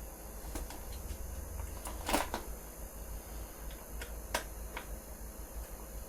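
Hand work on a dirt bike's plastic headlight mask and wiring: scattered small clicks and taps, with one brief louder scrape or rustle about two seconds in, over a low steady hum.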